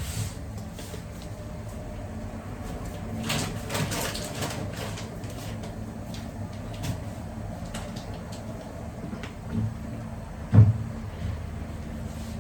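Kitchen handling noises: scattered clicks and knocks, with a cluster a few seconds in and a single louder thump near the end, over a steady low hum.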